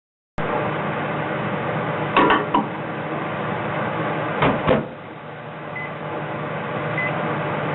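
Microwave oven running with a steady hum. A few knocks come about two seconds in and again about four and a half seconds in. Two short high beeps sound near the end.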